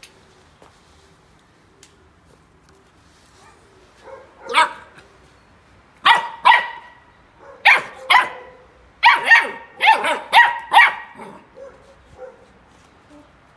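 Golden retriever puppy play-barking: about ten short, high-pitched barks in quick runs, starting about four seconds in and ending a little before the end.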